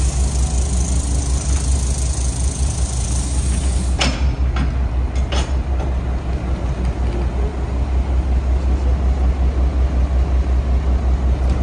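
Mack MR garbage truck's diesel engine idling with a steady, pulsing low rumble. A few short knocks come about four to five and a half seconds in.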